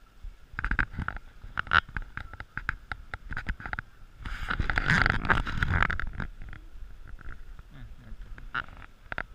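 Rubbing, rustling and knocking handling noise from a chest-mounted action camera moving against the wearer's clothing while walking. The noise is a scatter of short knocks at first, then a louder rubbing rush for under two seconds about halfway through. A faint steady high tone sits underneath.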